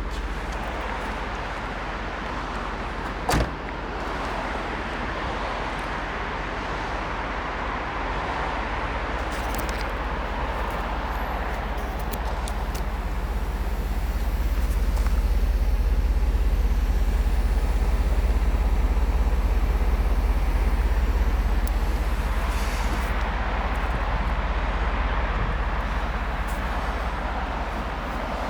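Mercedes-Benz 500 SL's 5.0-litre V8 car running steadily, with a sharp click about three seconds in; the sound swells louder through the middle and eases back near the end.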